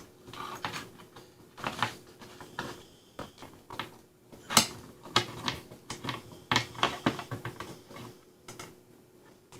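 Irregular clicks and taps of small plastic parts of a trouble light being handled and pressed together during reassembly, the sharpest click about four and a half seconds in.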